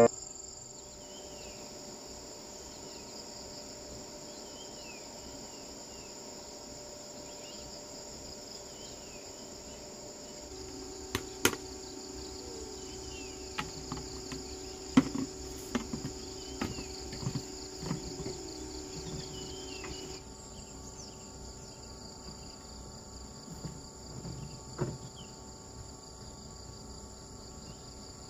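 Insects trilling steadily, with short falling bird chirps here and there. From about ten seconds in, a faint low hum and scattered clicks and knocks come in for roughly ten seconds, two of the knocks standing out.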